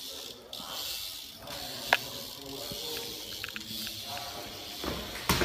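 BMX bike tyres rolling and hissing over wet concrete, with a sharp click about two seconds in and a loud knock near the end as the bike comes down from a foot plant 180.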